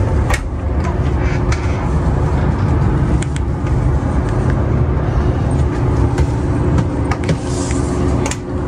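Steady low rumble and hum inside a stationary railway sleeping car, with a few sharp clicks and knocks.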